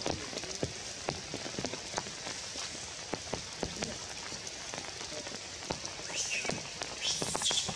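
Rain pattering on forest leaves, a steady hiss with scattered drip ticks. High-pitched squeaky calls come in near the end.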